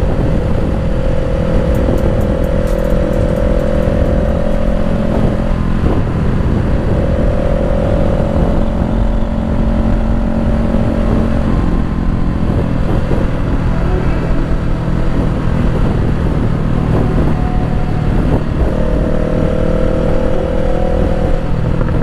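Honda CBR500R's parallel-twin engine running at a steady cruise, its note holding fairly level throughout, with a steady rush of wind noise underneath.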